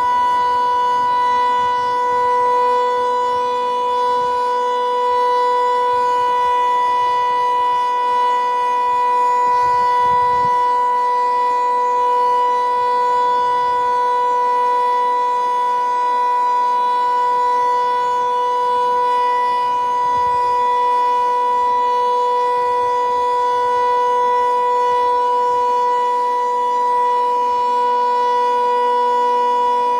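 508 outdoor warning siren sounding one steady, loud tone at full speed. Its loudness does not swell and fade, because the broken rotator leaves the horn pointing one way instead of sweeping around.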